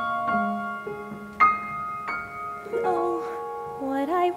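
Piano accompaniment to a musical theatre ballad, holding notes and striking new chords about a second and a half in and again twice shortly after, between sung phrases.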